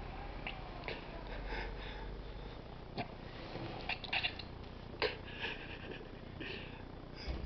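A mattress and its bedding being shifted on the floor: soft rustling and a few light knocks, with short breathy sniffs and snorts of stifled laughter.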